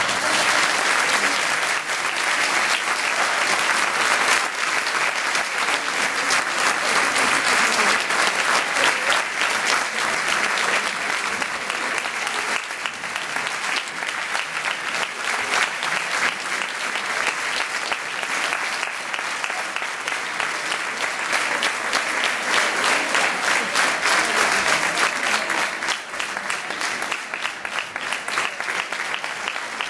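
Audience applauding steadily, many hands clapping at once, thinning a little near the end.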